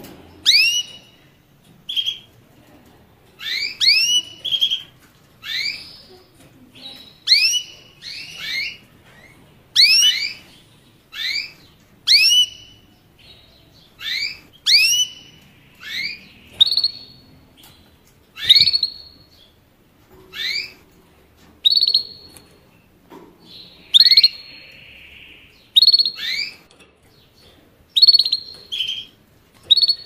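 A small finch calling: short, sharply rising chirps, one or two at a time, about once a second.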